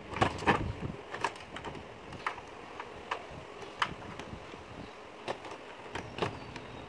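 Plastic clicks and knocks from handling a washing machine's control board and its plastic panel housing. A cluster of louder knocks comes just after the start, then single sharp clicks every second or so.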